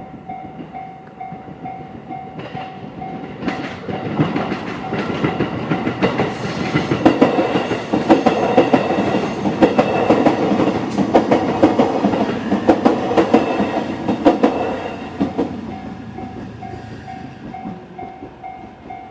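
Electronic level-crossing warning bell (JR standard sound) pulsing steadily while a JR East E531-series electric train passes over the crossing. The train's wheels clatter rapidly over the rail joints, building from about four seconds in and fading out past the midway point. The bell's pulsing stands out clearly again near the end.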